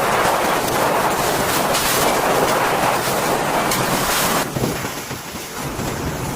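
Hurricane wind roaring as a steady, loud noise. About four and a half seconds in it changes abruptly to a quieter, lower noise.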